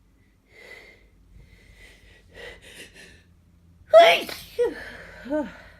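A person sneezing from allergies. A few gasping breaths build up, then one loud voiced sneeze comes about four seconds in, followed by two short vocal sounds falling in pitch.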